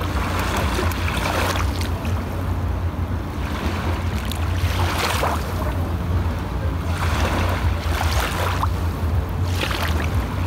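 Small waves lapping onto a sandy shore, one wash every couple of seconds, over a steady low rumble of wind on the microphone.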